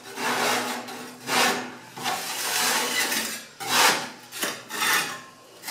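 Metal spatula scraping loose soot across the sooty top of a wood-burning stove in about six scraping strokes, with a longer stroke in the middle. The soot is being pushed toward the opening into the combustion chamber.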